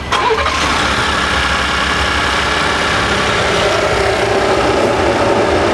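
Ford 3.5L EcoBoost twin-turbo V6 idling steadily with the hood open, just started to check the newly installed blow-off valve for leaks.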